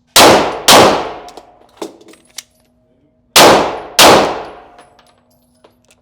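Glock pistol fired twice in quick succession, a pause with a few small clicks of a magazine change, then two more quick shots. Each shot rings on briefly in the range.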